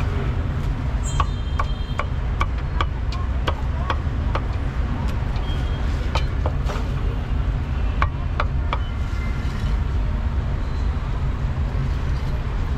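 Meat cleaver chopping roast pork on a round wooden chopping block: sharp knocks, a couple a second at an uneven pace, over a steady low rumble of street traffic.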